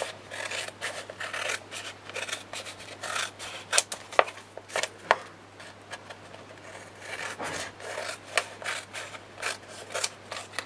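Scissors cutting a thick sheet of kraft-tex: an irregular run of snips with the blades rasping through the material, the sharpest snips about four and five seconds in.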